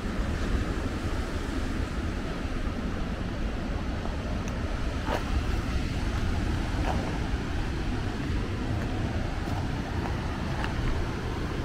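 Wind rumbling on the microphone over a steady rush of ocean surf, with a few faint ticks.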